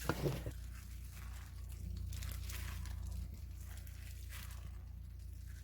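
A knock right at the start, then crinkling and rustling noise while water is poured onto malt powder.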